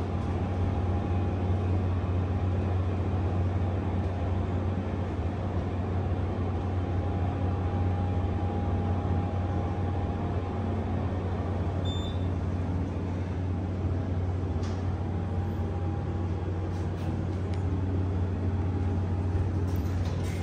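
Hydraulic passenger elevator running, a steady low hum that holds unchanged throughout.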